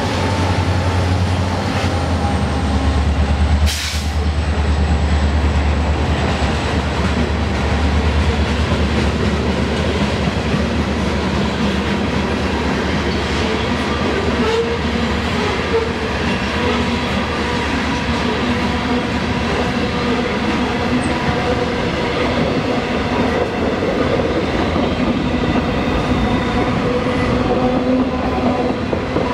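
Freight train passing close by. The deep drone of its diesel locomotives fades over the first several seconds, leaving the steady rolling noise of the freight cars' wheels on the rails.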